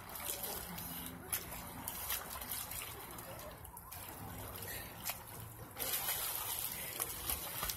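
Swimming-pool water sloshing and trickling as swimmers move. About six seconds in it becomes louder splashing as a swimmer kicks at the surface.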